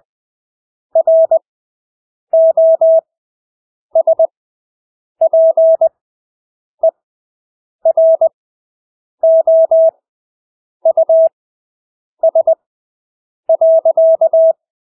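Morse code practice tone: a single steady beep keyed on and off into dots and dashes. The characters are sent at 20 words per minute with long Farnsworth gaps of about a second between them, about ten characters in all.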